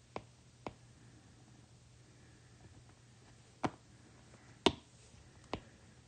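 Stylus tapping on a tablet's glass screen: five short, sharp taps, two close together near the start and three spread through the second half, the loudest about two-thirds of the way through.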